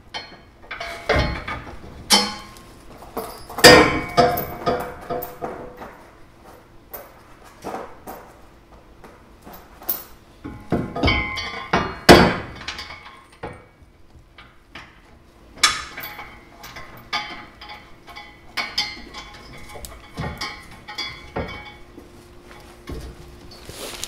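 Steel trailer hitch knocking and clanking against the vehicle's frame as it is held up and worked into place for its rear bolts. The metal knocks and clinks are irregular, some ringing briefly; the loudest come about four seconds in and about halfway through.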